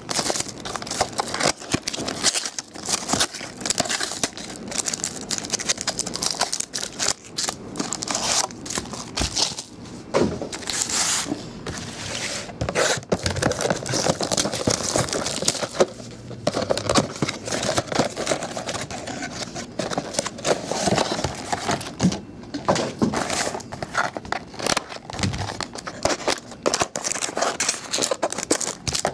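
Foil trading-card pack wrappers and plastic packaging being handled and torn open by hand: continuous crinkling and tearing with many sharp crackles.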